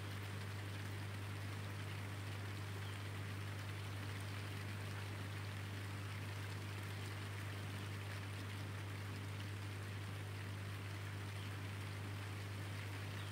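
Rain falling steadily, a fine even patter, over a constant low hum.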